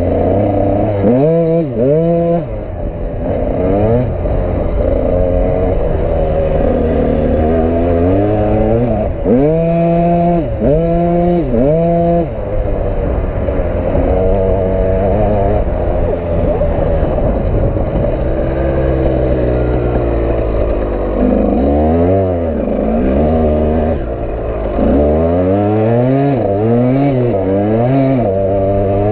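KTM EXC two-stroke dirt bike engine under hard riding, its pitch climbing and dropping again and again as the throttle is opened and shut and the gears change. The quickest runs of rising revs come about a second in, around ten seconds in, and in the last few seconds.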